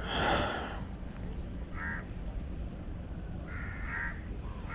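A crow cawing several times, with short harsh caws about two seconds in, a run of them around four seconds and another near the end. A louder rush of noise fills the first second.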